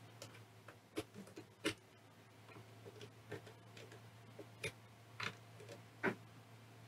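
Screwdriver tightening the case screws of a FrSky Taranis X9D radio transmitter: faint, irregularly spaced clicks, about half a dozen in all.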